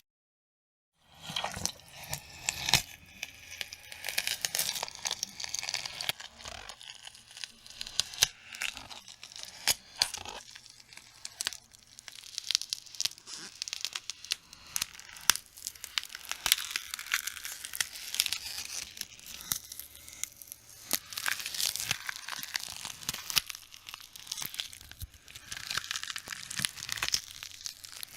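Foley sound effect of tearing and crackling: a dense, irregular run of sharp snaps and crinkles with a high hiss. It starts about a second in, after dead silence.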